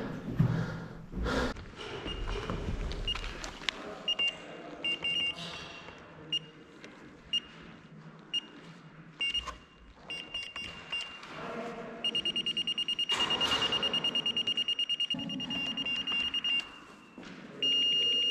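An electronic beeper sounds a single high tone. First it gives short beeps about once a second, then it beeps rapidly for several seconds, then it holds one continuous tone near the end. A few knocks come in the first couple of seconds.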